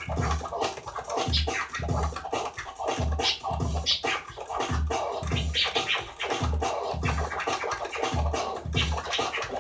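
DJ scratching on a turntable-style deck, many quick back-and-forth record sweeps chopped with the crossfader, over a backing beat with a steady kick drum.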